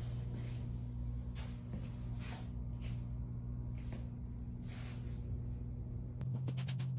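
A steady low machine hum runs under short hissing breaths close to the microphone, which come about once a second for the first five seconds. About six seconds in the hum changes character and light clicks begin.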